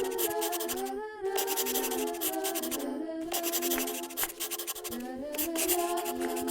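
Rapid back-and-forth scribbling strokes of colouring on paper, over light background music with a steady melody.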